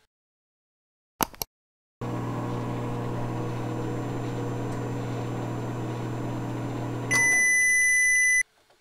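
Microwave oven sound: two quick clicks, then a steady hum for about five seconds, ending in a long, loud, high beep that cuts off suddenly.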